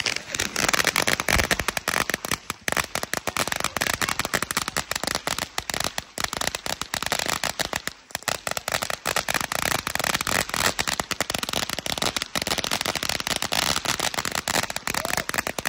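A string of Chinese firecrackers going off in a rapid, unbroken crackle of bangs, stopping abruptly near the end.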